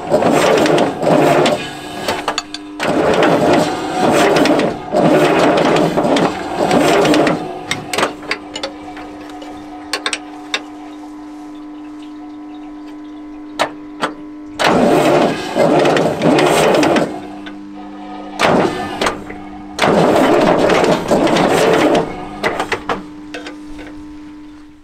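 Kirovets K-700A's V8 turbo diesel being cranked over in repeated bursts of about two seconds, five times, while its fuel lines are bled. A steady hum carries on in the gaps between the bursts.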